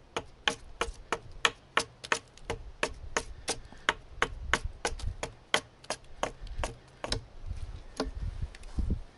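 Hatchet hewing a green-wood branch, quick light chopping strikes about three or four a second that shave mass off the flat top of a rabbit stick. The strikes thin out to a few in the last two seconds.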